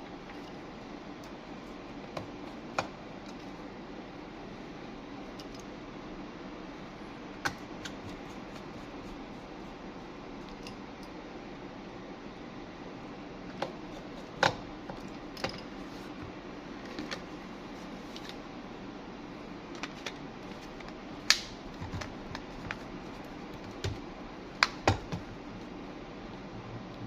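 Scattered sharp clicks and taps of small tools and phone parts being handled during a phone repair, over a steady background hiss. The loudest clicks come about two-thirds of the way in and in a cluster near the end.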